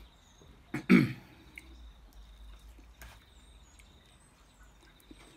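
A man eating: one short throat sound, like a grunt or throat-clear, about a second in, then faint clicks of cutlery working food in a foam takeaway box, with a few faint high bird chirps.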